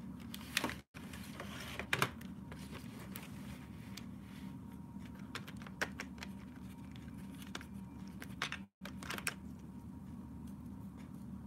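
Light clicks and knocks of watercolor paint tubes being handled in their boxed set, over a steady low hum. The sound cuts out completely twice for a split second.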